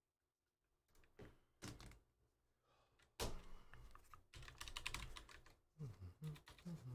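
Faint clicking of typing on a computer keyboard: a few separate keystrokes, then a quick run of them in the middle, with an odd heavier thunk.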